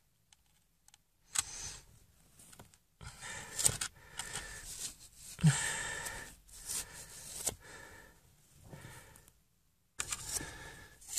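Irregular rustling, scraping and clicking handling noise, in short bursts with brief silent gaps.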